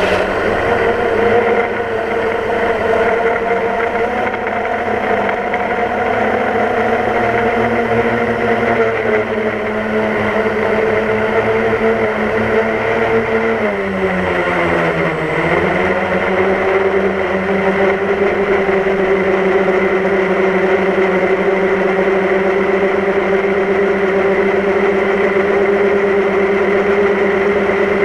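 DJI Phantom quadcopter's electric motors and propellers humming steadily, heard from the camera mounted on the drone. About halfway through the pitch drops, then holds at a lower, steady hum.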